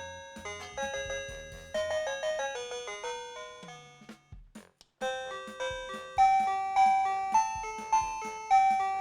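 OMERIL wireless doorbell receiver playing its electronic chime tunes, each note struck and fading. One melody ends a little before halfway, a couple of clicks follow, and a new, louder tune starts about five seconds in.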